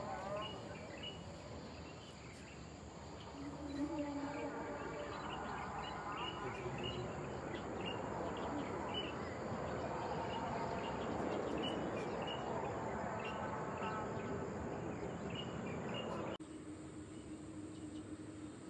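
Insects chirping, short high chirps at about two a second, over a broad rushing wash of distant jet-engine noise from an airliner on the runway that swells toward the middle. Near the end the sound cuts off abruptly to a quieter steady hum.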